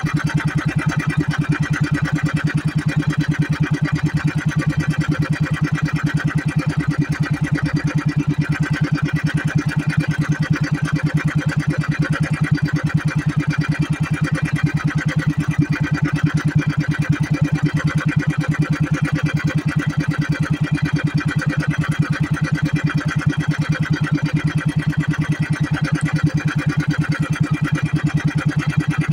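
Small outrigger boat's engine running steadily under way, a fast even chugging with no change in speed.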